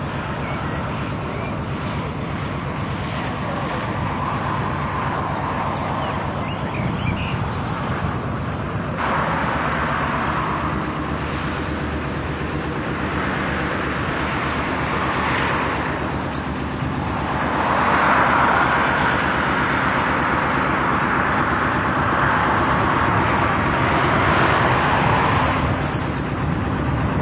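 An engine running steadily, with a rushing noise that swells and fades a few times over it.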